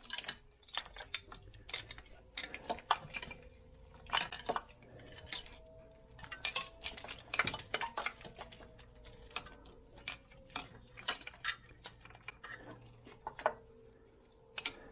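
Irregular metallic clinks and clicks of hand tools and small metal parts being handled, many sharp taps in quick succession, over a faint steady hum.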